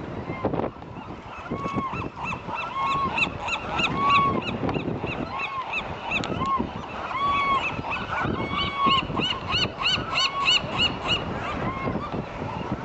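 A flock of birds calling over and over, many short honking calls overlapping, with a quicker run of calls from about eight to eleven seconds in.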